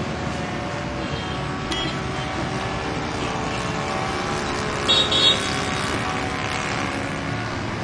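Engine of a radio-controlled YAK54 model airplane droning steadily in flight, its pitch shifting slightly. Two short high beeps come about five seconds in.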